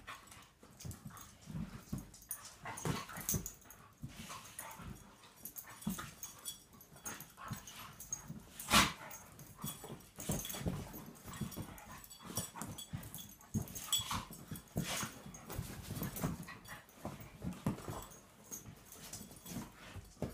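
Dog making short, irregular low vocal sounds throughout, with a single sharp knock about nine seconds in.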